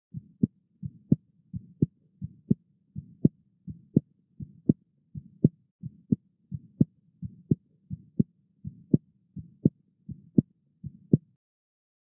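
Heartbeat of a patient with a prosthetic aortic valve, heard through a digital stethoscope: a steady rhythm of about 85 beats a minute. Each beat is a pair of sharp sounds, the second one crisper and louder, which is the valve's closing click. The beats stop about a second before the end.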